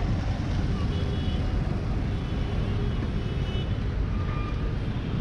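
Steady low rumble of a vehicle driving through busy road traffic, with faint short high beeps now and then.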